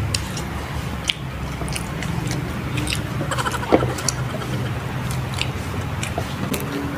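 People chewing and biting pizza, with scattered short mouth clicks and smacks over a steady low background hum. A brief voiced sound comes a little past three seconds in.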